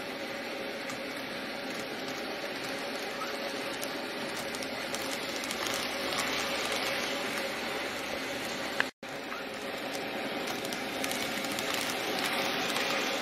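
N gauge model diesel railcars (KiHa 56 and KiHa 22) running on the layout track: a steady small-motor hum and wheel patter that grows louder as the train passes close, about six to seven seconds in and again near the end. A click and a brief break in the sound come about nine seconds in.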